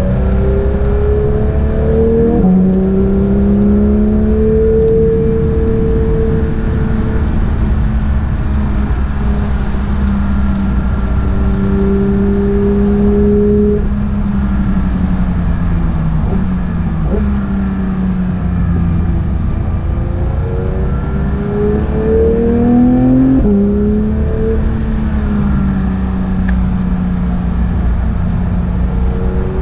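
Porsche 911 GT3 (992)'s naturally aspirated 4.0-litre flat-six at racing speed, its pitch climbing through the revs and dropping sharply at quick PDK upshifts about two seconds in and again near the end, and easing down under braking in the middle with a quick rise back up. A steady rush of tyre and road noise on the wet track runs underneath.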